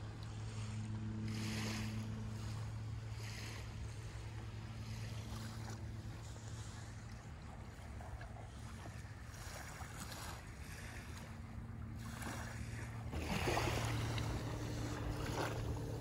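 Small waves washing onto a sandy shore, swelling a few times and loudest near the end, with wind on the microphone. A steady low engine hum runs underneath.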